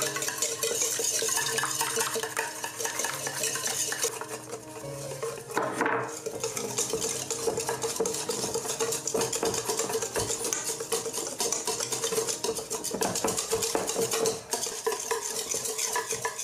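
Wire balloon whisk beating a flour, egg and milk batter in a stainless steel bowl: fast, steady clicking of the wires against the metal, with a short let-up about four to five seconds in.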